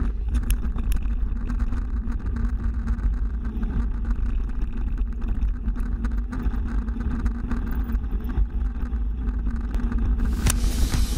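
Wind rumble on an action camera and the rattle of a mountain bike rolling over a gravel dirt track, a steady low roar with many small knocks. Near the end a brighter, louder sound cuts in.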